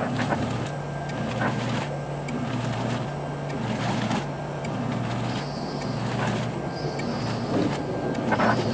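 Mini washing machine running a wash cycle: its motor hum switches back and forth between two pitches about once a second as the agitator reverses, with water sloshing and scattered clicks.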